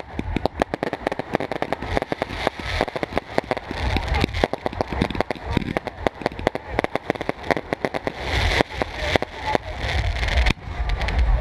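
Fireworks going off: a fast, irregular crackle of many small pops, with a few louder bangs among them.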